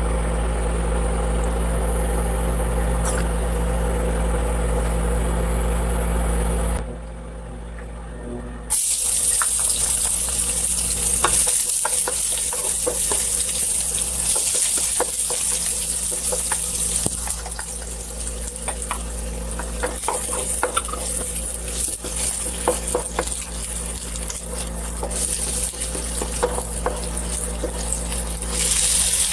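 A steady low hum, then chopped garlic sizzling in hot oil in a nonstick wok, with a spatula scraping and clicking against the pan as it is stirred. Near the end the sizzle grows louder as more chopped ingredients are tipped into the oil.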